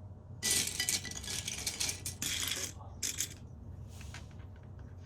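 Loose LEGO pieces clattering and rattling as they are rummaged through, in several bursts with the longest near the start.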